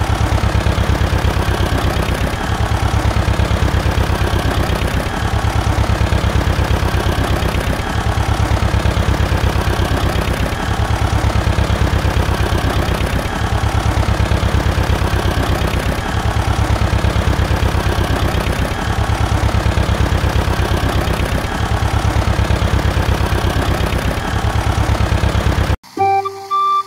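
Small diesel engine idling with a fast, even beat, the same pattern repeating every two to three seconds. About a second before the end it cuts off abruptly and flute music starts.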